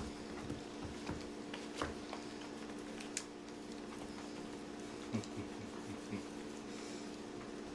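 Scattered small clicks and scuffles of a puppy moving about and climbing onto a person, over a steady low hum.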